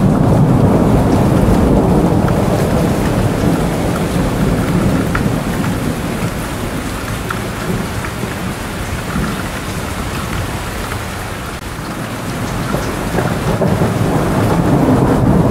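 Steady rain with low rolling thunder that eases off in the middle and builds again near the end, with scattered drops ticking.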